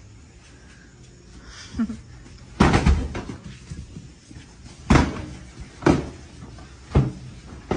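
A run of about five heavy thumps and slams from a pillow fight, pillows striking bodies and people falling onto a tiled floor, spaced roughly a second apart from a few seconds in; the first is the loudest and longest.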